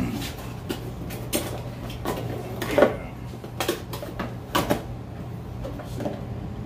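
Handling sounds from unboxing a fishing reel: a cardboard box and its plastic wrap being taken apart, giving a series of sharp taps, rustles and knocks, the loudest about three seconds in. A steady low hum runs underneath.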